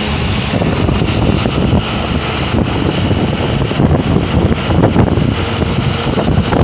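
Loud, steady wind rush over the microphone at the open side window of a moving truck's cab, with the truck's engine and road noise rumbling underneath.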